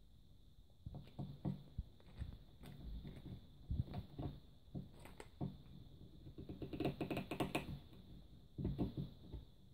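Small plastic and rubbery toy figure pieces handled and pressed together by hand: scattered taps and clicks, with a quick run of clicks about seven seconds in and a shorter cluster near the end.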